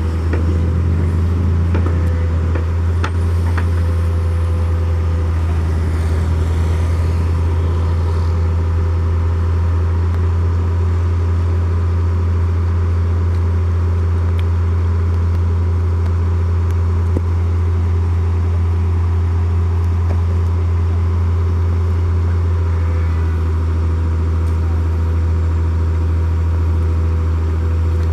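A large engine running steadily, making a constant low drone that does not change in pitch or level, with a few faint knocks in the first few seconds.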